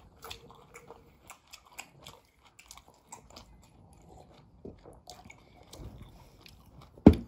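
Close-up eating sounds: crunchy bites and chewing, with small clicks scattered throughout. A single loud thump comes just before the end.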